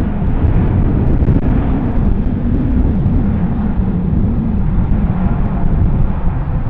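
Boeing 787's twin turbofan engines at takeoff thrust during the takeoff roll: a steady, loud, deep jet roar.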